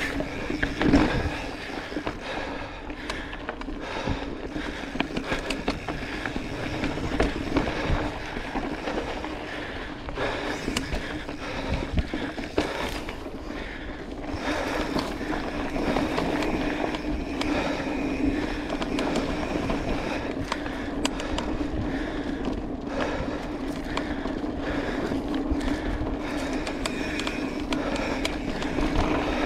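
Mountain bike rolling along a dry dirt singletrack: the tyres hum and crunch steadily on the dirt, with scattered knocks and rattles from the bike over bumps.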